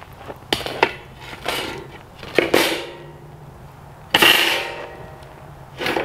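Metal grill grate being set down over a steel campfire ring, clanking and scraping against the rim several times, each hit ringing briefly. The loudest clank comes about four seconds in.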